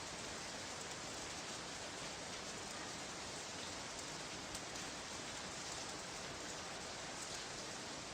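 Steady, even hiss with scattered faint clicks and crackle, played from a vintage vinyl sound-effects record.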